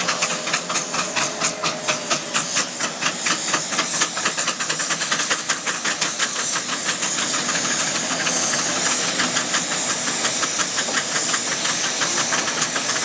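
Several steam traction engines working hard, their exhaust beats chuffing in rapid, overlapping succession over a steady hiss of steam.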